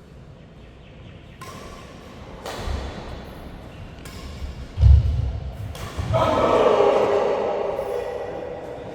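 Music building to one heavy, deep thud about five seconds in, followed by a loud sustained swell that slowly fades.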